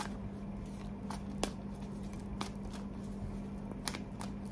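A deck of tarot cards being shuffled by hand: a handful of sharp card clicks at irregular intervals, over a steady low hum.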